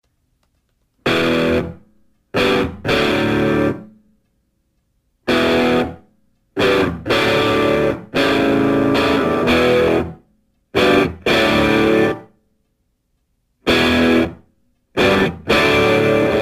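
Background music: distorted guitar chords played in stop-start bursts with silent gaps between them, going into unbroken playing near the end.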